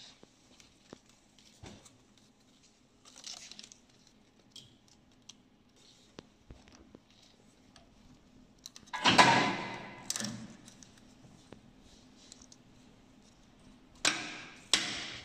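Plastic strapping being handled and threaded by hand into an automatic strapping machine: scattered clicks and rustles, with a louder scraping rustle about nine seconds in and two shorter ones near the end, over a faint steady hum.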